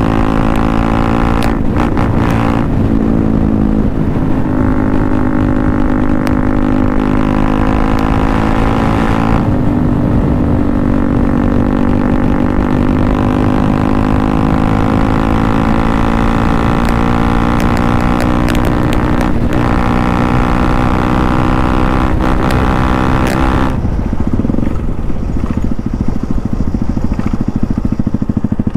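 KTM Duke 200's single-cylinder four-stroke engine through an aftermarket Akrapovic exhaust, pulling hard at high speed on a top-speed run, with wind rush. The note breaks briefly a few times and climbs slowly in pitch in between. About 24 seconds in the throttle closes and the engine note falls away.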